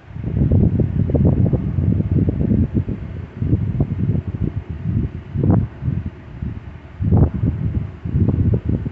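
Low, irregular rumbling and buffeting noise on the microphone, coming and going in gusts.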